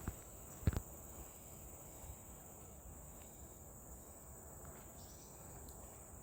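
Insects droning steadily at a high pitch, with a single thump about a second in.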